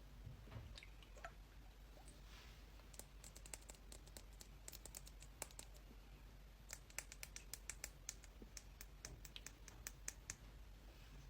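Faint, irregular light clicks and taps, sparse at first and coming more quickly from about three seconds in, over a low steady hum.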